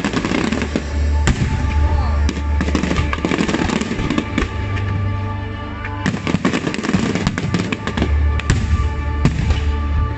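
Aerial fireworks shells bursting in rapid succession: a dense string of sharp bangs and pops, with music playing underneath.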